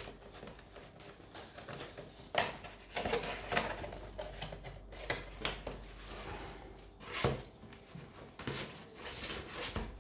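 Handling noise from trading cards, a glossy comic and other paper inserts being shuffled and packed back in: rustling with a scattering of light clicks and taps.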